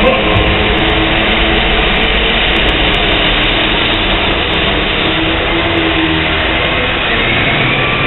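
Diesel pull truck's engine running hard at a steady, loud pitch under load.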